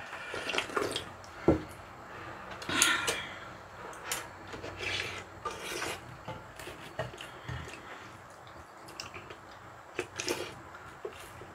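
Spoons and chopsticks clinking and scraping against bowls during a meal, in scattered short clicks and rustles, with one sharp knock about a second and a half in.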